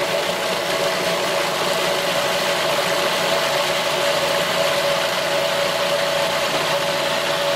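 Countertop food processor motor running steadily, blending a wet cauliflower sauce: an even whir with a strong steady hum tone.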